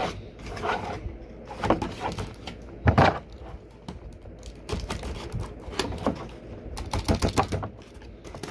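Utility knife with a blade that is getting dull, cutting and scraping through corrugated cardboard packaging. The strokes are irregular, with one stronger cut about three seconds in and a quick run of clicks near the end, mixed with the rustle of cardboard inserts being handled.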